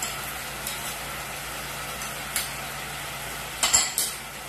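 Rasam simmering in a pan on an induction hob, a steady hiss. A few light clicks of a spoon against a small bowl and the pan as the crushed cumin, garlic and peppercorns are tipped in, the loudest clinks near the end.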